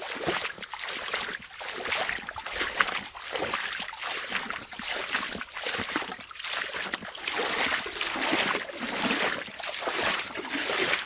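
Stream water rushing and splashing over rocks, a dense, uneven splashing that swells and dips irregularly.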